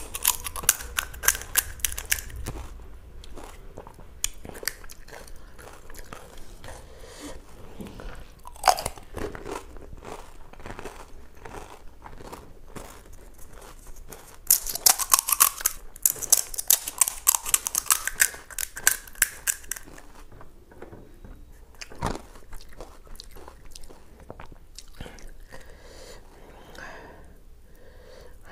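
Crisp fried pani puri shells crackling and crunching as they are cracked open with the fingers: one spell of rapid crackles near the start and another lasting about five seconds in the middle, with quieter scattered clicks in between.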